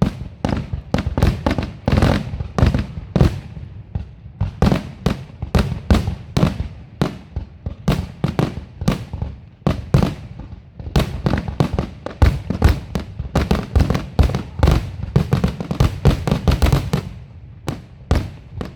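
Fireworks finale: a dense, rapid barrage of shell bursts and bangs, several a second, with a deep rumble underneath.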